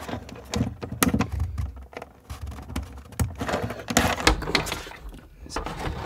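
Hands handling electrical wire inside a wooden cabinet: rustling with scattered light knocks and clicks.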